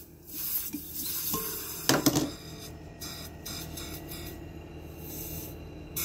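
Side cutters crunching through the compressor's copper refrigerant pipe, with a cluster of sharp snaps about two seconds in, then only a faint hiss. So little refrigerant escapes because the system has lost its gas through a leak.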